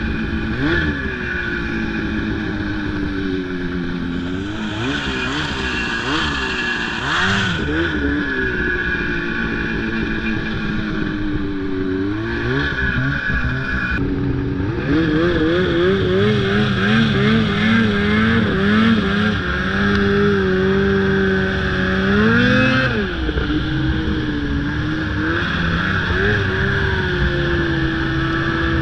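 Snowmobile engine running and revving, its pitch rising and falling again and again as the throttle is worked. About halfway through the sound changes abruptly and the engine carries on with a steadier note that swells and dips.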